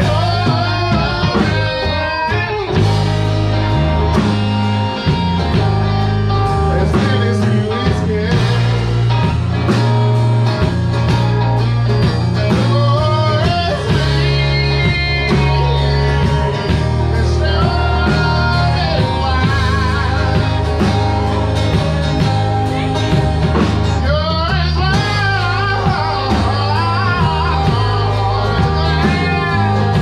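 Live blues-rock band playing: electric guitars, bass and drums over a steady bass line, with a singer.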